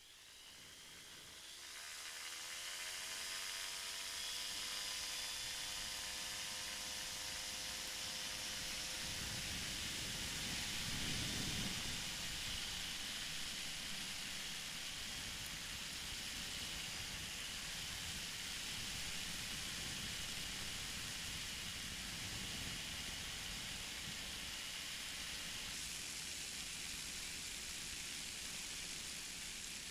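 Flexwing microlight trike's engine throttling up, its note climbing over the first few seconds and then holding steady at high power under heavy wind rush on the microphone: the trike is taking off. A deeper rumble swells briefly about eleven seconds in.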